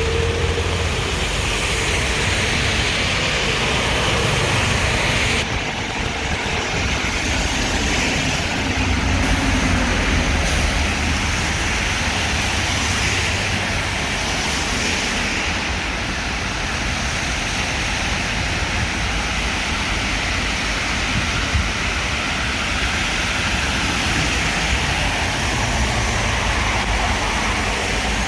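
City street traffic in heavy rain: cars passing with tyres hissing on the wet road over a low engine rumble, and a steady rain hiss.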